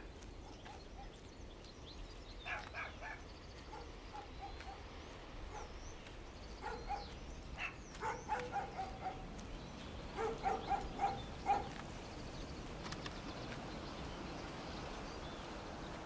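A dog barking in several short runs, the last a quick series of about five barks, over a steady low background hiss with a few faint high chirps of birds.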